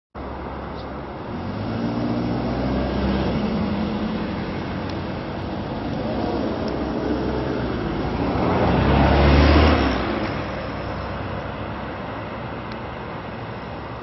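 Running noise of a moving vehicle: a steady low rumble and hiss with a low hum. It swells to its loudest about nine to ten seconds in, then eases off.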